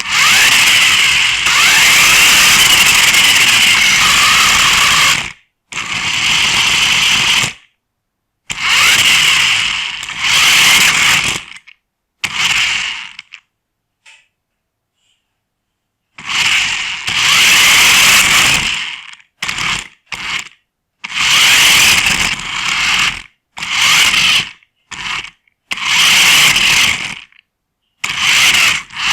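Small toy RC car's electric drive motor and plastic gears whining in repeated bursts as it is driven in short runs, with silent pauses between. It is heard very close, from a camera riding on the car, and the bursts get shorter and quicker in the second half.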